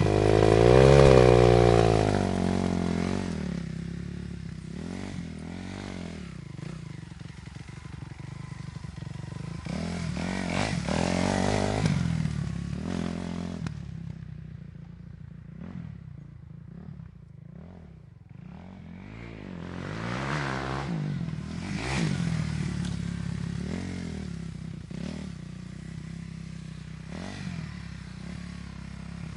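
Dirt bike engines revving up and down through the throttle as bikes ride by. The loudest moment is about a second in as one passes close, with a falling pitch. The sound is quieter in the middle and swells again later.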